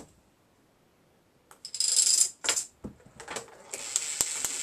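Plastic K'nex pieces rattling and clicking as the contraption runs. Near the end a K'nex motor switches on and keeps running with a steady high whine and rapid clicking, about four clicks a second.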